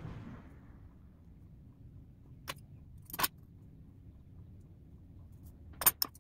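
Hand-sewing work on a felt glove: soft handling of the fabric, with a few sharp, short clicks from the needle, thread and tools. There is one click about two and a half seconds in, a close pair about three seconds in, and two more near the end.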